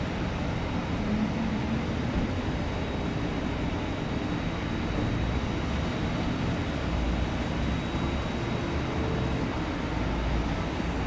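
Steady rumble and hiss of jet airliner engines on the airfield, with a faint high whine.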